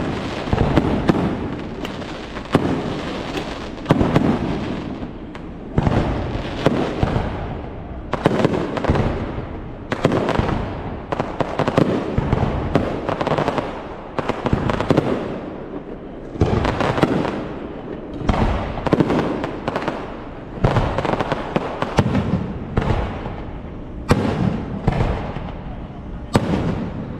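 Aerial fireworks show: a rapid run of shell bursts, a sudden bang every second or two, each fading away before the next.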